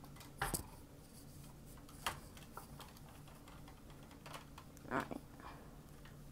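A few faint, scattered clicks of LEGO plastic pieces being handled and pressed together on a table, the sharpest about half a second in.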